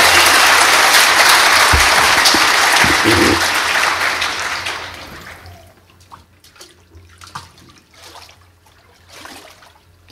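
Congregation applauding, loud at first and then dying away about five seconds in. After that come faint, scattered splashes and drips of water in the baptistry.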